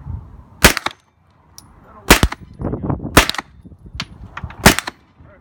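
MP5 submachine gun fired in single shots: four loud, sharp cracks about a second apart, with a fainter crack between the last two.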